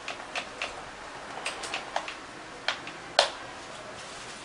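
Short clicks and taps, about nine of them spread irregularly, the sharpest a little over three seconds in, as the telescopic metal antenna of a handheld RC helicopter transmitter is pulled out section by section.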